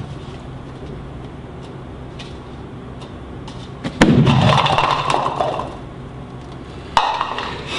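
A pyramid of polystyrene cups collapsing onto a table about four seconds in, the cups clattering and knocking against each other and the tabletop, with another sharp knock near the end. Before the collapse there is only a steady low hum.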